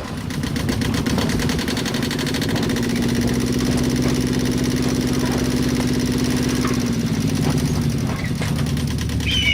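Trawler boat engine running steadily with a rapid, even chugging, fading in over the first second.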